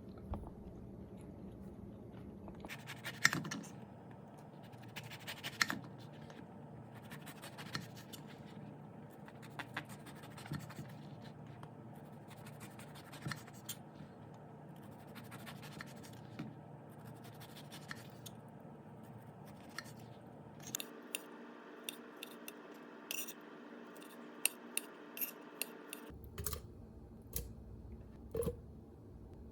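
Scattered light clicks, taps and scrapes from handling food and kitchen utensils while cooking and eating, over quiet room tone.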